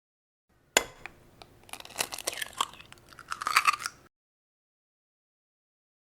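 An egg is cracked with one sharp crack about a second in, then its shell is pulled apart with a run of crisp crackling and small wet clicks that stops suddenly after about four seconds.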